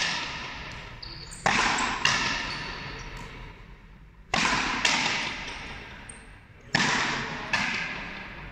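Frontenis rally: rackets striking the rubber ball and the ball smacking the front wall of the frontón. It comes as three pairs of sharp cracks, the two in each pair a little over half a second apart and the pairs about two and a half seconds apart, each ringing out in a long echo through the hall.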